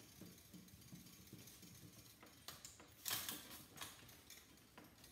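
Screwdriver working a screw out of a toaster's sheet-steel frame: faint scraping and small metallic clicks, with a louder cluster of clicks about three seconds in.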